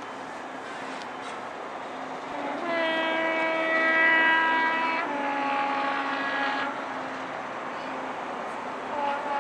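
A train horn sounds two tones: a high note held for about two seconds, then a lower note for under two seconds, over a steady hum. Another short horn sound begins near the end.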